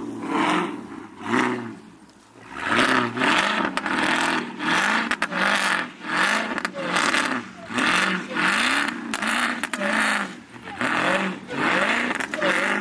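Car engine revved again and again in quick throttle blips, each rise and fall in pitch lasting about half a second, about one and a half a second, with a short lull about two seconds in.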